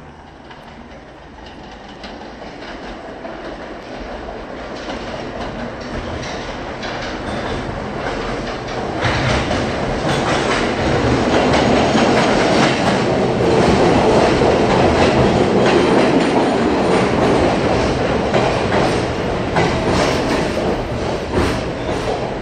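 A New York City subway R train of R46 cars pulls into an underground station, growing steadily louder as it approaches and passes. Its wheels click over the rail joints, faster and denser from about nine seconds in, with a faint wheel squeal as it slows alongside the platform.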